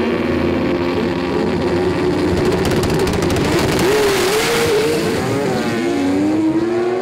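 Mazda 20B triple-rotor drag racing engines revving on the start line with wavering pitch, harshest and loudest around the middle. Near the end the pitch rises steadily as a car accelerates away down the strip.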